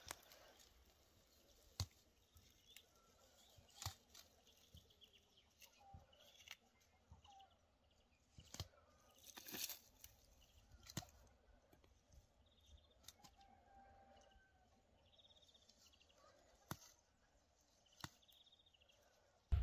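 Near-silent outdoor quiet with scattered soft snaps and rustles as wildflower stems and greens are picked from the grass by hand, and a few faint short bird calls.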